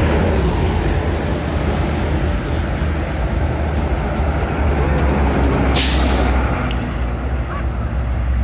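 Trucks passing on a hill road, their engines giving a steady low rumble, with one short sharp hiss of air about six seconds in.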